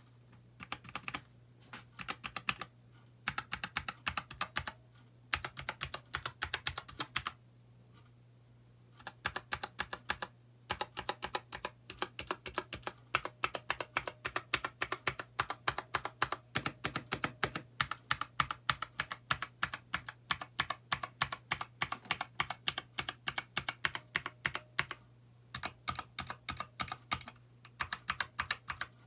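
Typing on a Keychron K2 mechanical keyboard with an aluminium frame and brown switches: runs of quick key clacks in bursts, broken by short pauses, the longest about seven to nine seconds in. A faint steady low hum lies underneath.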